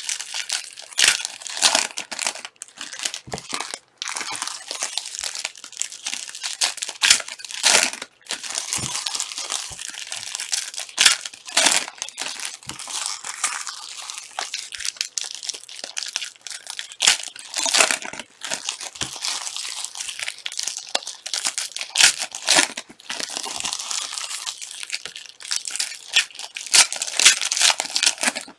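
Plastic wrappers of trading card packs being torn open and crinkled by hand, with irregular sharp crackles throughout.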